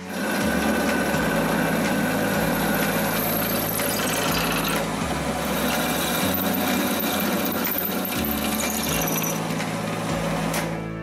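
Bench drill press boring a hole through a steel rod with a twist bit, a steady grinding whir of the bit cutting metal with a higher whine in the first few seconds; it stops about ten and a half seconds in.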